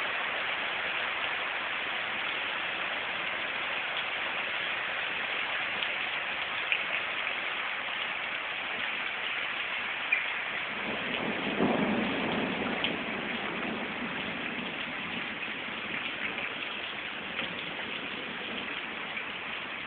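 Rain falling steadily, drops splashing into standing water on flooded ground, with a lower rushing swell about halfway through.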